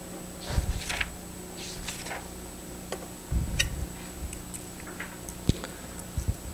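Room tone with a steady low hum and a thin high whine, broken by scattered small clicks and a few short soft rustles.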